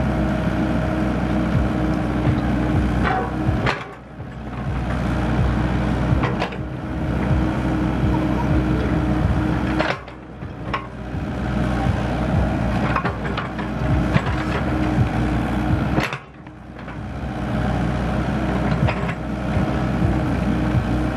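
Compact crawler excavator's diesel engine running steadily as the machine digs, with knocks and scrapes from the bucket working the soil. The sound drops away briefly three times.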